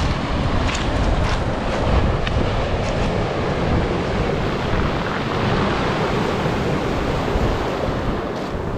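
Sea surf breaking steadily on the shore, with strong wind rumbling on the microphone.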